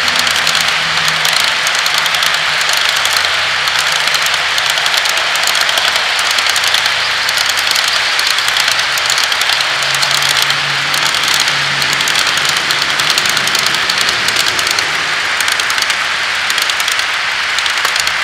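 Plastic HO scale freight cars' wheels rolling and clicking along sectional model track in a steady, loud rush, with a low hum coming and going.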